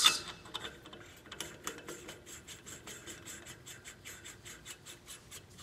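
Badger FTE steel muzzle brake being spun by hand onto the freshly cut threads of a Remington 700 .308 barrel: a quick, even run of light metallic ticks, about six a second, as the threads engage.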